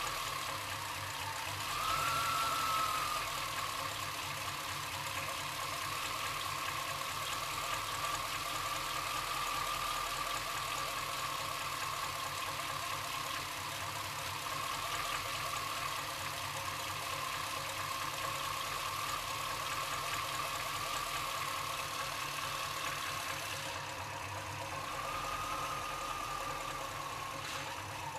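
1990 Chevrolet C1500's 350 TBI small-block V8 idling roughly, with a high whine that swells and fades, most strongly about two seconds in and near the end. This is the rough idle that sometimes sinks low enough for the engine to stall.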